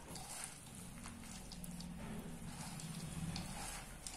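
A hand mixing puffed rice, peanuts and chutneys in a steel bowl: a faint, steady crackling rustle of the crisp grains with small scattered ticks.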